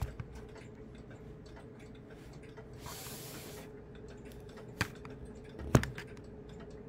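Mechanical pendulum clocks ticking, with two sharp clicks about a second apart near the end, the second the loudest, and a brief rustle about three seconds in, over a faint steady hum.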